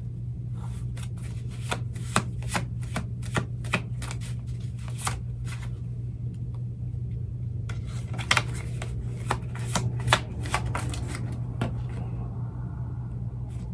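A deck of oracle cards being shuffled, a dense run of quick papery snaps and clicks that eases off in the middle and picks up again, over a steady low hum.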